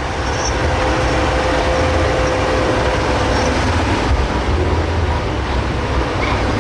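Big Bud HN360 tractor's diesel engine running steadily, a deep rumble with a faint steady whine above it that fades out about halfway through.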